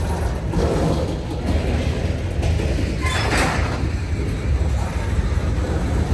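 Freight train rolling past: a steady low rumble of wheels on rail, with louder, hissier swells about half a second in and again around three seconds in.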